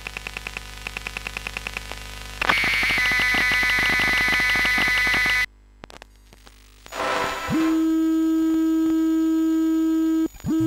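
Electromagnetic emissions of a Tascam handheld recorder and then a compact digital camera, heard raw through an induction-coil EMF microphone (APSC Electromic XL). First come rapid ticking pulses, several a second, then a dense buzzing tone rich in overtones that stops suddenly. After a short gap and a noisy burst, a steady electrical hum sets in and cuts off near the end.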